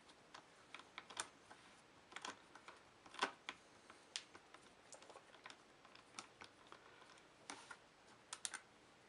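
Irregular light clicks and taps from a small screwdriver and tiny screws on the laptop's plastic and metal as the two screws holding the hard drive are taken out. The loudest tap comes a little over three seconds in.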